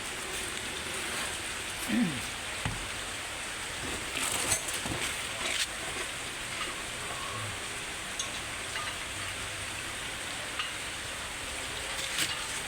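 Steady rain falling, a constant hiss, with a few light knocks about two, four and five and a half seconds in.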